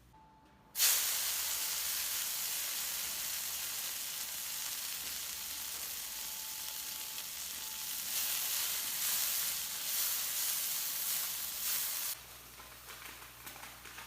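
Vegetables stir-frying in hot oil in a pan, sizzling loudly: the sizzle starts suddenly about a second in, swells a little later on, and stops abruptly near the end.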